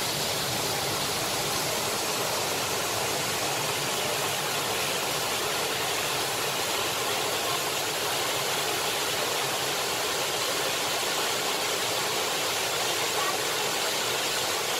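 Small waterfall pouring down rock into a pool: a steady, even rush of water.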